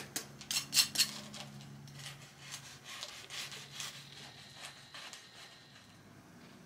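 A kitchen knife sawing through the crisp, breadcrumb-coated crust of a fried pumpkin croquette on a wooden cutting board. It crackles and crunches, loudest in the first second, then fainter crackles as the blade works through.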